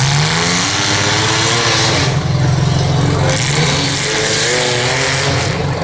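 Several demolition derby cars' engines revving hard and accelerating as the heat restarts, the pitch climbing at the start and rising and falling unevenly after.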